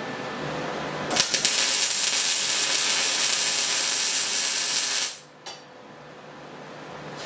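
MIG welder arc running steadily for about four seconds while welding a nut onto a steel plate. It starts with a few sharp sputters about a second in and cuts off abruptly.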